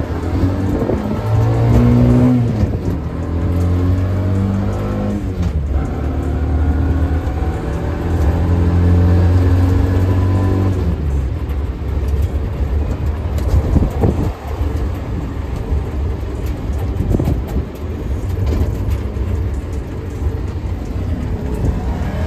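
Engine of a small open-sided passenger vehicle, heard from inside its cabin, revving up and down as it drives, its pitch rising and falling through the first half and then running steadier.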